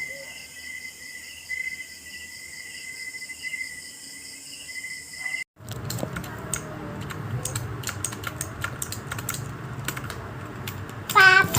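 Typing on a mechanical keyboard with clicky blue switches: a quick run of sharp key clicks over the second half. Before it comes a steady, pulsing high-pitched chirring, and a brief loud pitched sound near the end.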